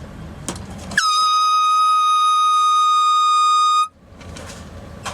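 Air horn blasting one loud, steady note for about three seconds, starting with a brief drop in pitch and cutting off sharply.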